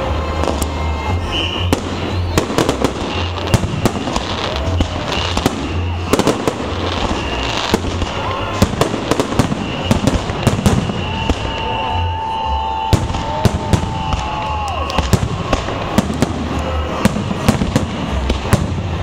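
Fireworks salute: a dense, irregular run of sharp bangs and crackles from bursting shells over a steady low rumble.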